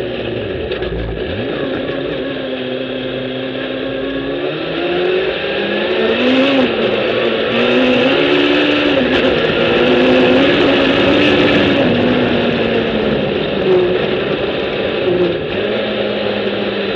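Sandrail's Suzuki Hayabusa inline-four motorcycle engine running under throttle on the dunes, its pitch rising and falling as the rail slows and speeds up. It is louder and higher from about five to twelve seconds in.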